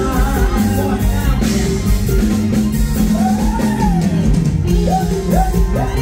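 Live band playing a song with a drum kit keeping a steady beat under bass and melody, and a male singer's voice through the PA near the start.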